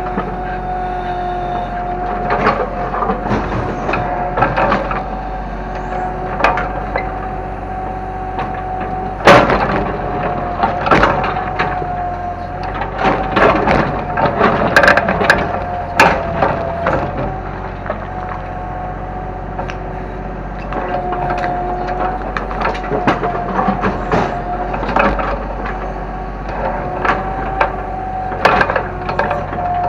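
Kobelco excavator running with a steady whine while it breaks up a house: repeated sharp cracks and crashes of splintering wood and falling debris, the loudest about nine seconds in.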